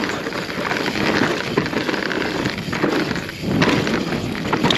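Mountain bike tyres crunching over loose volcanic rock, with a steady run of small clicks and rattles from stones and the bike.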